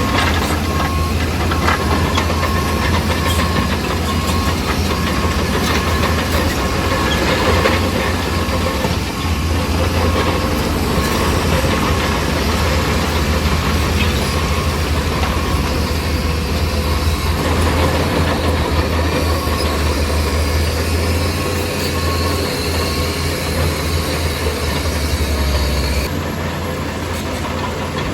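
Bulldozer's diesel engine running steadily with a deep hum and a rattling clatter; the low engine note drops away near the end.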